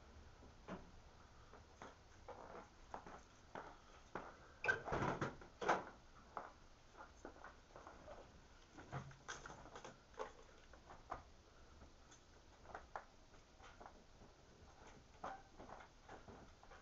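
Faint, scattered knocks and clicks of a person opening a car door and climbing into the driver's seat, loudest about five seconds in. No engine is running yet.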